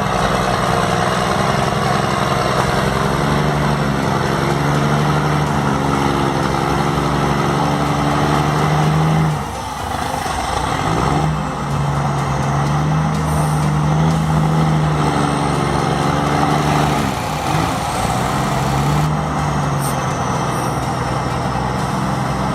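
Logging truck's diesel engine working under load, its pitch rising and falling with the throttle. It eases off briefly about nine and a half seconds in, then pulls again.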